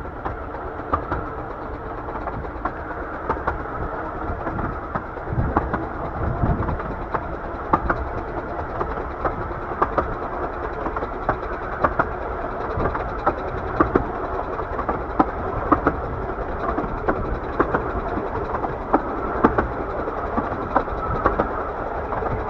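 Miniature-gauge railway train running along the line, heard from a carriage: a steady rumble from the wheels and track with sharp irregular clicks of the wheels over rail joints.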